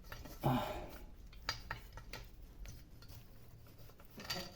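Faint, scattered clicks and light knocks of hands working on washing-machine parts, as a wire connector is being taken off.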